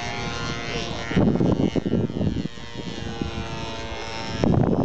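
Radio-controlled model airplane's motor buzzing steadily in flight. Loud low rough noise swells over it about a second in and again near the end.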